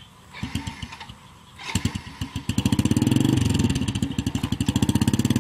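Small motorcycle engine being started: a brief sputter about half a second in that dies, then a second try about two seconds in that catches, and the engine runs on with a steady, fast beat.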